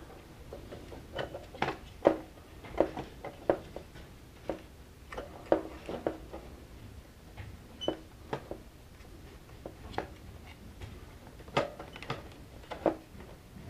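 Irregular sharp clicks and taps of hard plastic parts being handled while a toothed plotter carriage belt is worked into the channel of an HP Designjet carriage, a few of them louder knocks.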